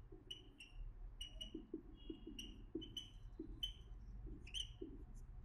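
Whiteboard marker squeaking on a whiteboard as a word is written by hand: a string of faint, short, high-pitched squeaks with soft scratching of the tip between them.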